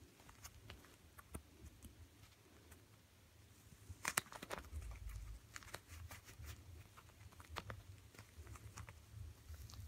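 Faint, scattered clicks and rustles of hands working a replacement ear pad's plastic retainer ring onto a Panasonic RP-HTX7 headphone ear cup, with a short cluster of louder clicks about four seconds in.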